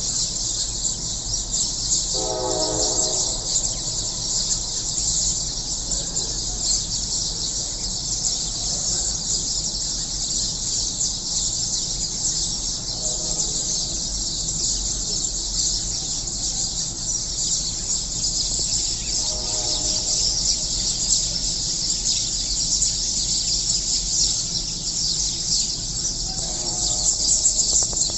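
A flock of sparrows chirping in a dense, continuous high-pitched chatter. Four times, roughly every six to seven seconds, a lower drawn-out call of about a second sounds over it.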